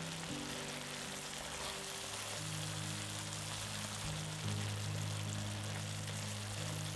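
Background music of held low notes that change every second or two, over a faint steady sizzle of zucchini and tomato sauce simmering in a frying pan.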